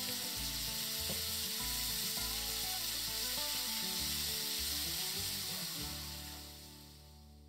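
Food sizzling in a frying pan, a steady hiss over soft background music, both fading out over the last second or so.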